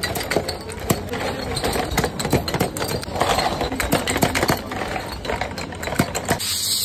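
Metal crown caps being popped off glass Mountain Dew bottles one after another with a hand-held bottle opener: a rapid, uneven run of sharp clicks and glass clinks.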